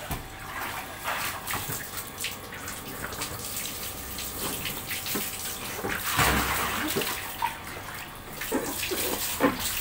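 Water splashing and sloshing in a small inflatable paddling pool as a toddler moves about in it, with a heavier, louder splash about six seconds in as she drops back into the water.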